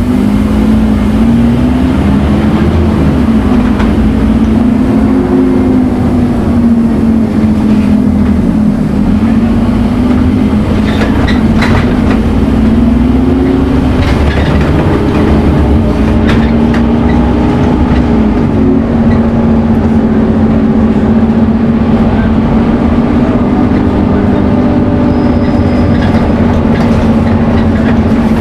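Scania N230UD Omnicity bus's diesel engine running under way, its pitch rising and falling repeatedly with the throttle and gear changes, then holding fairly steady in the later part. The whine is of the kind that bus enthusiasts call the Scania 'hoover'.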